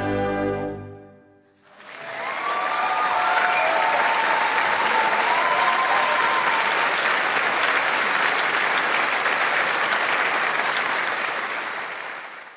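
A wind band's final held chord dies away in the first second or so. After a brief gap the audience breaks into loud, steady applause, with a few calls from the crowd in its first seconds.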